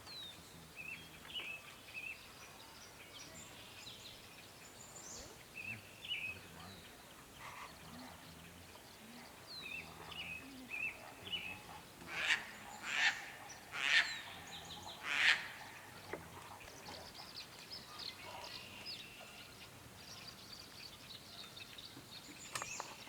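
Wild birds chirping on and off, with four louder calls about a second apart a little past halfway through.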